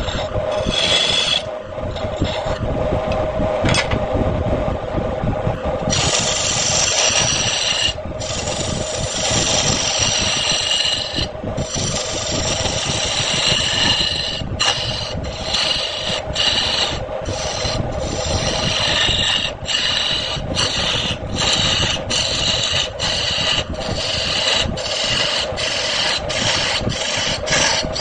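Wood lathe running with a steady hum while a hand tool works against the spinning wood in repeated passes. The scraping cuts out briefly many times, more often in the second half.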